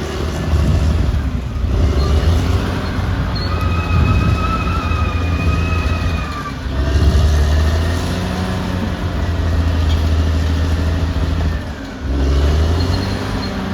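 Caterpillar D6R XL bulldozer working: its diesel engine runs loud and steady with a deep drone. A high-pitched squeal comes and goes twice over it, once for a few seconds early on and again near the end.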